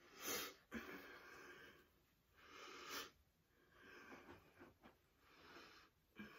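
Near silence broken by a few soft rustles, each under a second, as a fabric scarf is folded and handled.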